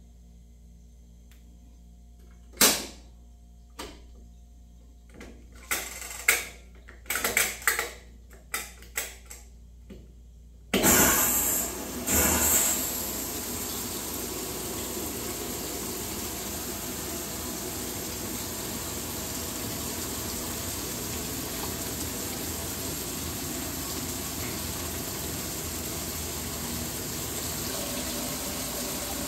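Washing machine controls clicking and knocking a dozen or so times. About eleven seconds in, water starts gushing into the tub with a sudden rush, then runs on as a steady fill.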